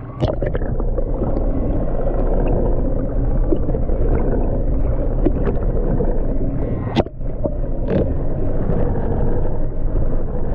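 Muffled underwater sound picked up by a diver's camera below the surface: a steady low drone with rushing water, broken by a few sharp clicks, two of them about seven and eight seconds in.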